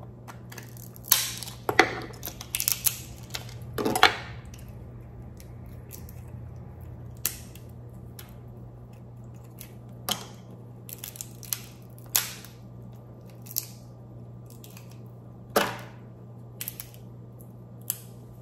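Dungeness crab leg shell cracking under a metal crab cracker: a quick run of sharp cracks and crunches in the first few seconds, then scattered snaps and clicks as the shell pieces are broken and pulled apart by hand. A steady low hum runs underneath.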